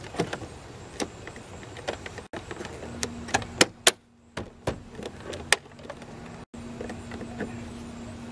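Plastic door-panel trim around a car's inside door handle being pressed and snapped onto its clip: a series of sharp plastic clicks and snaps, with a loud cluster about halfway through.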